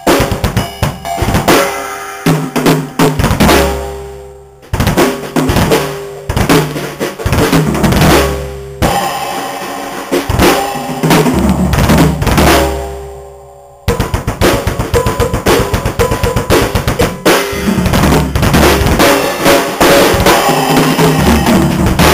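Odery acoustic drum kit played in a solo: fast fills across snare, toms and bass drum in loud phrases. Each phrase rings out and fades briefly before the next starts suddenly, about 5, 9 and 14 seconds in.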